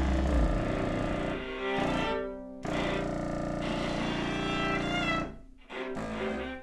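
Viola playing long bowed notes, with contrabassoon and Korg Kaossilator, in a slow contemporary chamber piece. The sound briefly thins out about two seconds in and again about five and a half seconds in.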